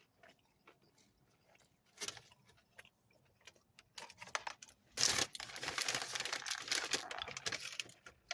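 Crinkling and rustling of food packaging being handled. It starts with scattered light clicks, then a dense crackle about five seconds in that lasts nearly three seconds.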